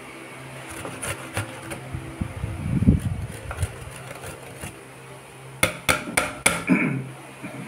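Kitchen knocks and taps while fresh ginger is shredded by hand: a handful of sharp taps about a second in, then a quick run of about five knocks about six seconds in.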